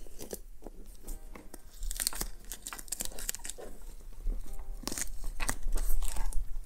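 Masking tape being peeled off a rubber boot around a cured Aquaseal patch, an irregular crackling tear, loudest about five to six seconds in. Faint music plays underneath.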